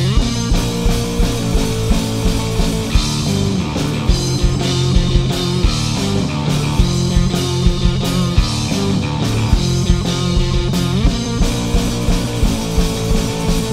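Grunge rock band playing a song's instrumental intro: electric guitar over a steady, loud beat, without vocals.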